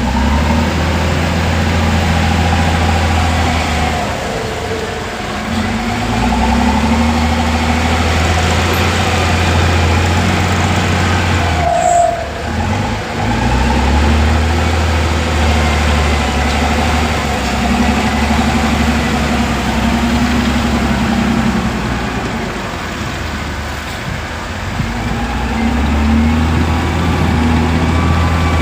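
Heavy diesel engine working under load, its note swelling and easing several times as the load comes and goes, with a sharp clank about twelve seconds in.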